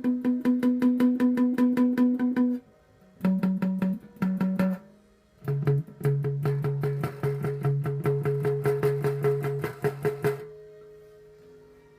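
Bass guitar played with fast, repeated plucks on a single note, about eight a second, in three runs, each lower in pitch than the last. The playing stops near the end and a last note rings on and fades.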